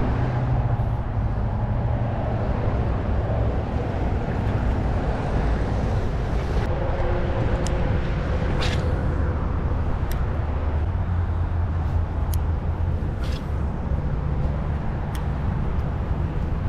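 Steady low rumble of nearby road traffic, with a few faint sharp clicks in the second half.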